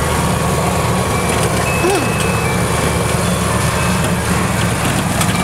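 Engine of a small open utility vehicle running steadily as it drives, a continuous low rumble.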